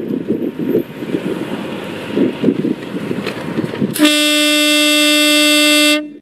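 Horn of a 2006 Harley-Davidson Fat Boy sounding one steady, loud blast of about two seconds, starting about four seconds in and cutting off sharply.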